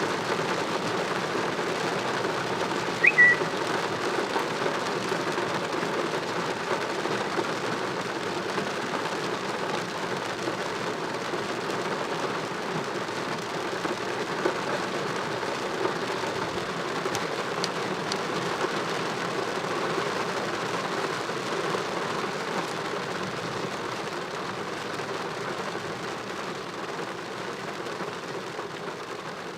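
Heavy rain falling steadily, a little lighter toward the end. A short, high chirp cuts through about three seconds in.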